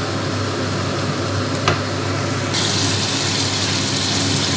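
Chopped onions browning in hot oil in a frying pan, sizzling steadily as a wooden spatula stirs them, with one sharp tap about one and a half seconds in. About halfway through the sizzle turns abruptly louder and hissier, the pan now holding spice masala with tomatoes.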